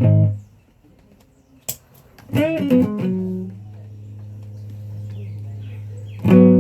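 Guitar played with a pick: a quick run of picked notes stops, a click follows a pause, then a note is bent up and back down and a low note is left ringing, until a loud new note is struck near the end and rings on.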